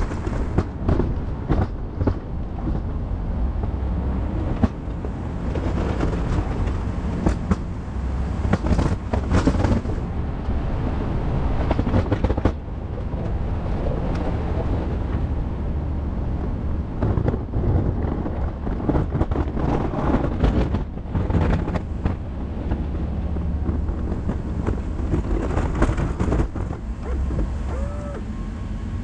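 2019 GMC Sierra 2500 pickup running steadily with a low rumble while pushing snow with its plow, with frequent irregular knocks and thumps.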